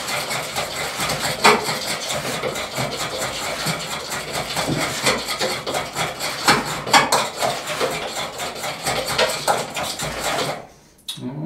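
Wire whisk beating pancake batter in a glass bowl, clattering rapidly and steadily until it stops near the end.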